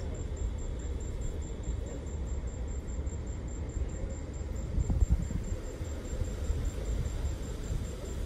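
Steady low rumble of outdoor background noise, swelling briefly about five seconds in.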